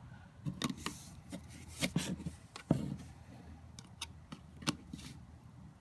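Irregular small clicks, taps and scrapes of hands and tools working a metal universal CV boot clamp band, with the sharpest knock a little under three seconds in.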